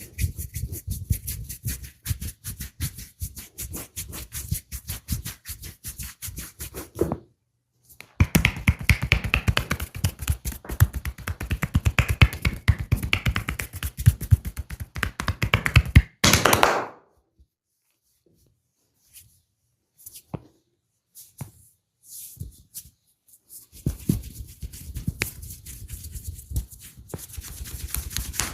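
Rapid rhythmic percussive massage strikes: fast runs of sharp taps and slaps on the body. They pause briefly about seven seconds in and thin to scattered clicks for several seconds past the middle before resuming.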